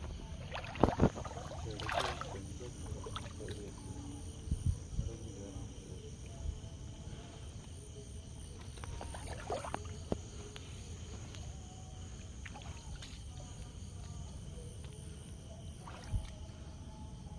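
Someone wading through shallow, muddy water, with scattered small splashes and sloshes over a steady low rumble.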